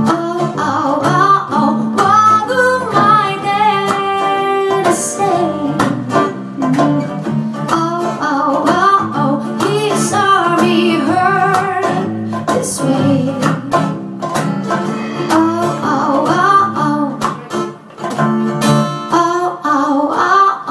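Acoustic band playing live: strummed acoustic guitar chords with a wavering melody line over them.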